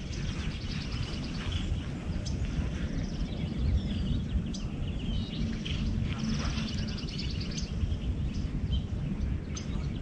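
Outdoor ambience: birds chirping and trilling repeatedly over a steady low background rumble.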